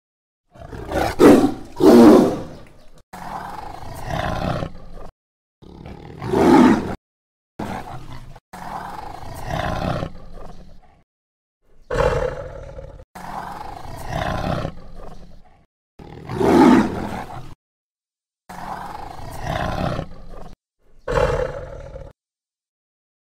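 Tiger roaring and growling again and again, each call a second or two long and cut off into short silent gaps. The loudest roars come about a second in, around six seconds and around sixteen seconds, with lower growling calls between them.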